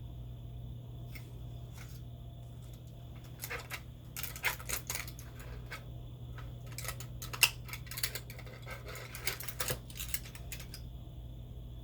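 A run of sharp clicks and rustles from small objects being handled, starting about three seconds in and stopping near the end, with one louder click in the middle. A steady low hum lies under it throughout.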